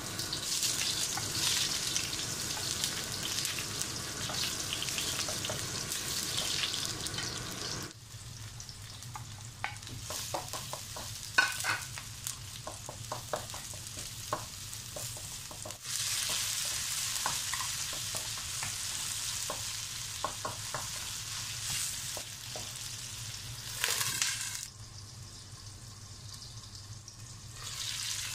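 Sliced onion and garlic sizzling in hot oil in a wok, stirred with a wooden spatula that clicks and scrapes against the pan. The sizzle comes in loud stretches that change suddenly to quieter spells of spatula clicks, with a short loud burst of sizzling a few seconds before the end.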